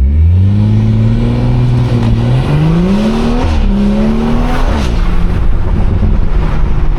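BMW 340i's turbocharged B58 inline-six with an aftermarket exhaust accelerating hard: the loud engine note climbs in pitch, drops sharply as it shifts up about halfway through, climbs again and drops at a second upshift, then carries on lower.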